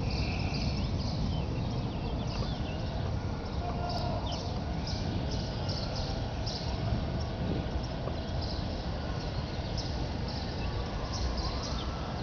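Birds chirping again and again over a steady low rumble.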